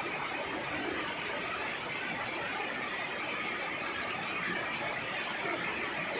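Steady rain falling on dense broad-leaved garden foliage, an even hiss with no break.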